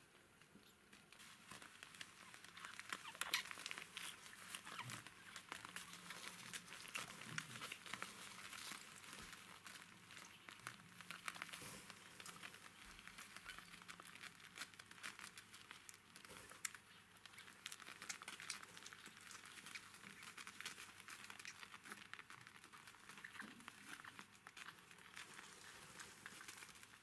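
Faint crinkly rustling made of many small scratchy clicks, picking up about two seconds in and going on unevenly.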